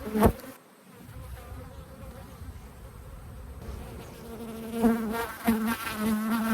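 Agitated honey bees buzzing close around the beekeeper, several passing in and out, louder in the second half; the buzzing of a defensive colony disturbed during the honey harvest. A sharp click near the start.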